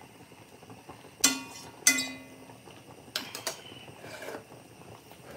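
A spoon knocked twice against an enamelled cast-iron pot to shake off coconut oil, each knock ringing briefly, then a few lighter clinks of kitchenware a second or so later.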